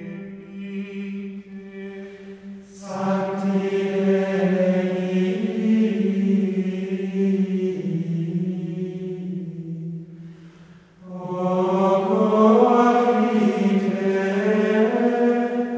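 Slow vocal chant sung in unison on long held notes, like monastic plainchant. It is soft for the first few seconds, then louder, and breaks off briefly about ten seconds in before the next phrase.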